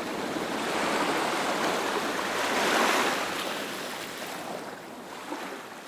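Ocean surf: a wave swells and breaks, loudest about three seconds in, then washes out and dies away.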